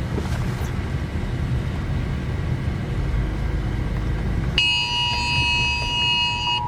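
A steady low rumble, then about four and a half seconds in a phone's emergency alert sounds: the harsh, steady two-tone attention signal of a wireless emergency alert, typical of a tornado warning, with a short break near the end.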